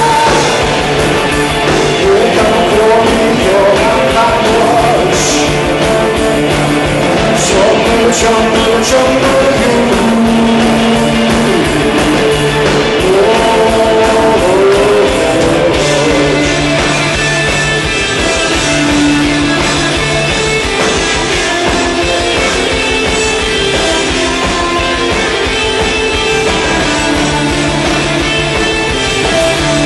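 Live rock band playing loud through a stage PA: distorted electric guitars, bass guitar and drums.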